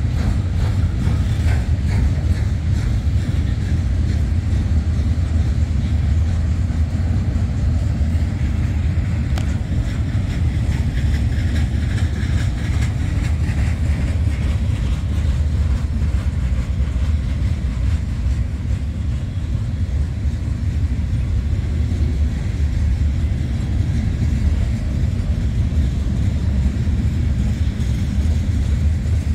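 Freight train rolling past, a steady loud low rumble of its cars on the rails.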